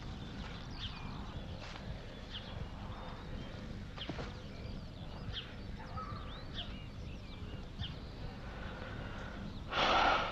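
Birds chirping: short high calls about once a second over a steady low background rumble. Near the end a person takes one loud, deep breath in.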